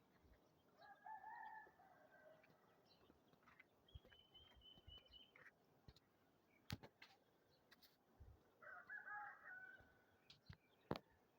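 Two faint, drawn-out animal calls, one about a second in that falls in pitch at its end and another about nine seconds in, with a few sharp clicks between.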